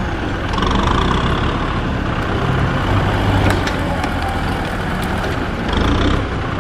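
Diesel tractor engines running under load, a low rumble that swells and eases as the stuck tractor is worked forward through deep mud. A couple of brief knocks come midway.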